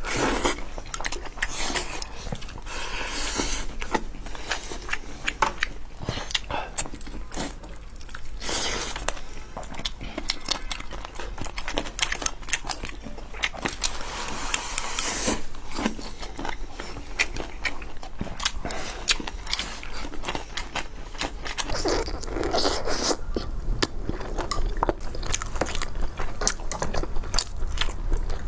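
Close-miked eating sounds: chewing and slurping mouthfuls of rice, braised chicken wings and green beans, with chopsticks clicking and scraping against the rice bowls.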